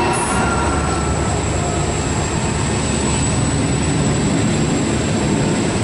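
Container freight train passing at close range: the rear of an 81 class diesel-electric locomotive goes by, then container wagons roll past, their wheels on the rails making a steady heavy rumble with a thin high whine over it.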